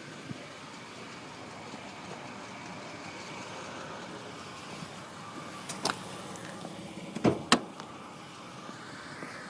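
Steady running noise from a 1999 GMC Safari van, broken by sharp knocks: two just past halfway, then two louder ones about a second and a half later. These are the kind of strange noises the van is making.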